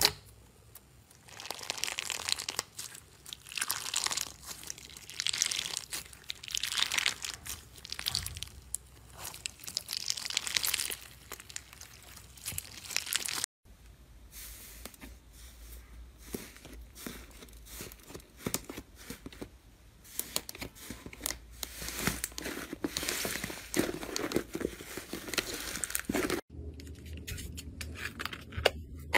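Slime squeezed and pressed by hand, crackling and crinkling. First a crunchy clear slime gives a run of loud squeezes. From about halfway through, a thicker slime pressed by a finger crackles more quietly.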